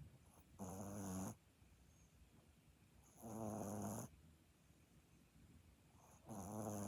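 A sleeping puppy snoring in a slow, even rhythm: three snores, each a little under a second long, about three seconds apart.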